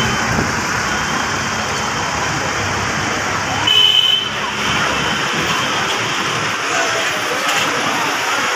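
Steady din of a crowded gymnastics venue, many voices and background noise blended into one hum, with a short high-pitched tone about four seconds in.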